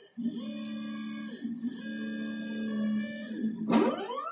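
Stepper motors of a DIY CNC thermocol cutting machine whining as the axes drive the hot needle through the foam. The tones hold a steady pitch during each move, with a short break in between, and near the end a whine rises sharply in pitch as a move speeds up.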